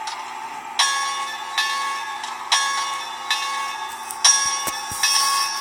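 Bachmann Spectrum 2-8-0 model steam locomotive's onboard sound system playing its locomotive bell: a struck bell ringing steadily, a little more than once a second, starting about a second in.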